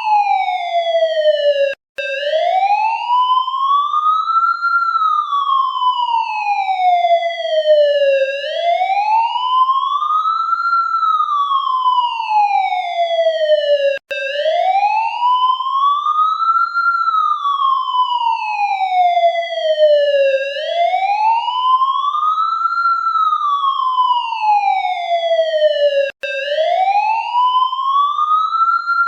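Electronic police siren sounding its wail: one tone gliding slowly up and then down, about six seconds per rise and fall. There are brief drop-outs about every twelve seconds.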